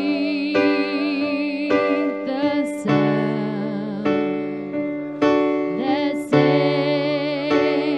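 Electric piano playing slow, sustained chords, a new chord struck about every second.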